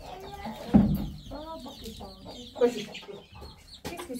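Chickens clucking, with short repeated calls and a few louder squawks.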